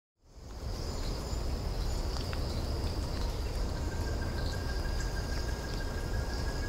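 Insects trilling steadily in forest ambience, with a second thin, steady high note joining about halfway through and a low rumble underneath. The sound fades in at the start.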